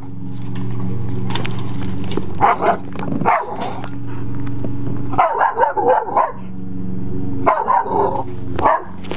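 Young bull terrier barking and yipping excitedly in several short bursts, with a steady low hum underneath.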